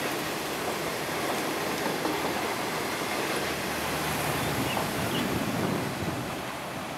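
Type 25Z passenger coaches of a through train rolling past, a steady rushing rumble of wheels on rail. It drops off a little near the end as the last coach goes by.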